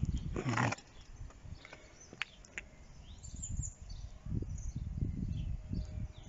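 Outdoor ambience: a gusty low rumble of wind on the microphone, with a few faint bird chirps and a brief handling rustle about half a second in.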